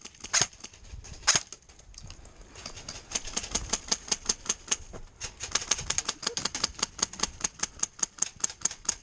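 Airsoft electric gun firing: two single shots, then from about two and a half seconds in a fast, even string of shots at roughly seven a second.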